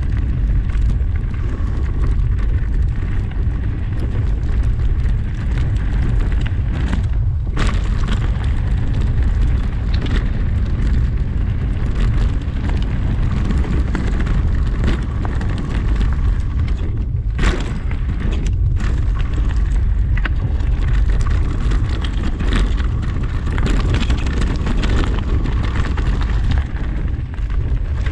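Heavy wind buffeting on a moving action camera's microphone while riding down a rough forest trail, a steady low rumble, with scattered knocks and rattles from the bumpy ground.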